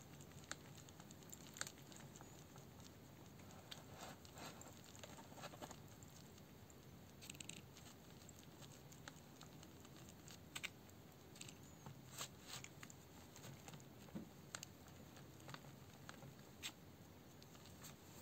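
Near silence with scattered faint rustles and light taps: a hand wiping and handling a smartphone's glass screen on a table.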